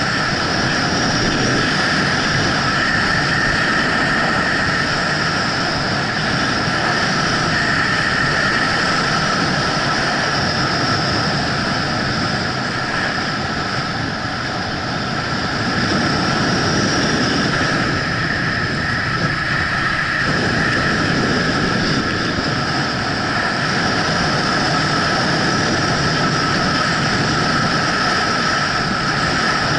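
Skis sliding and scraping over a groomed, hard-packed ski run, with wind noise on a helmet-mounted camera; a loud, steady hiss that dips slightly about halfway through.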